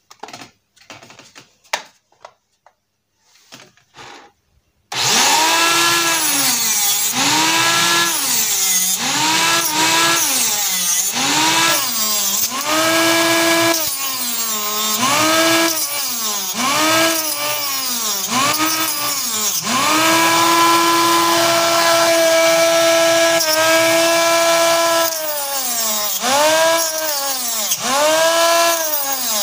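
Homemade mini table saw, driven by eight 6-volt DC motors geared together in series, starts up about five seconds in after a few faint clicks. Its pitch drops and recovers over and over as strips of wood are pushed through the blade, each cut slowing the motors, with a longer steady run near the middle.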